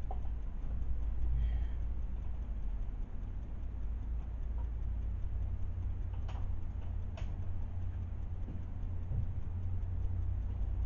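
Two sharp clicks, about six and seven seconds in, from small battery-powered devices being handled and switched, over a steady low rumble.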